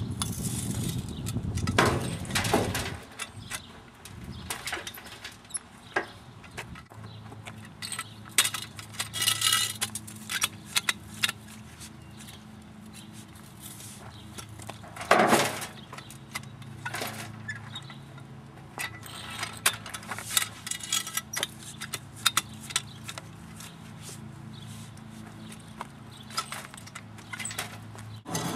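A shovel digging into a soil pile and tipping loads into a wheelbarrow: repeated gritty scrapes of the blade into the dirt, mixed with light metallic clinks and knocks from the shovel and its metal support bar.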